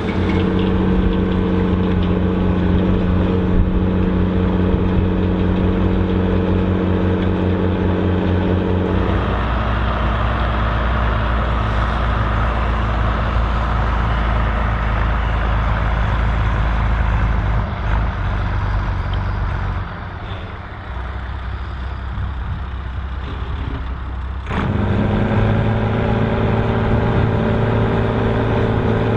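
Volvo BM 2654 tractor's diesel engine running steadily under load while ploughing. About nine seconds in, the sound shifts to a deeper rumble with more noise. The steady engine note returns near the end.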